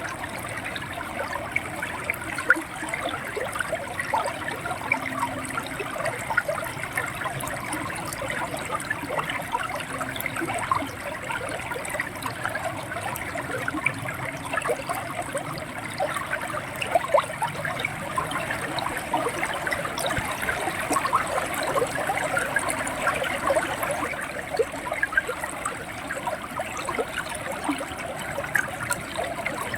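River water flowing and gurgling steadily, with many small splashes and bubbles.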